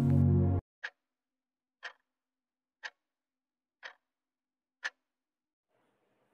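Countdown stopwatch tick sound effect: five short, dry ticks, one each second. Background music cuts off about half a second before the first tick.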